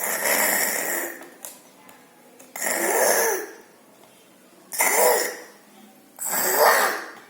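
A young child's voice giving four loud, breathy shouts, each under a second long and about two seconds apart.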